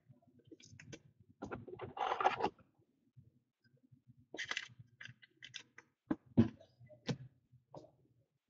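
Off-and-on handling noises: light clicks and knocks, a few short rustles, and one sharper click about six and a half seconds in.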